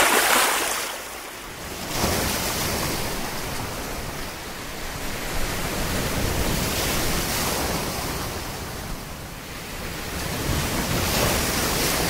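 Sea surf washing in over a shallow shore: a steady rushing hiss that swells and eases every few seconds as the waves come in.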